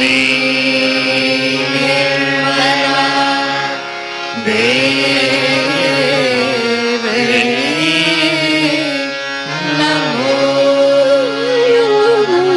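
Devotional Sahaja Yoga singing with instrumental accompaniment: voices carry a bending melody over a steady held drone. The singing drops away briefly about four seconds in, then resumes.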